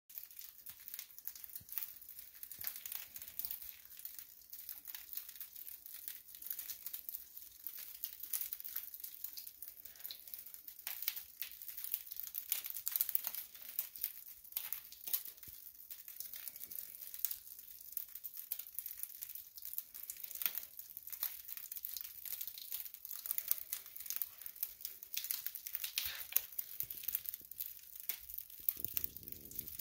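Light, irregular crinkling and crackling made up of many small clicks, like a rustle close to the microphone.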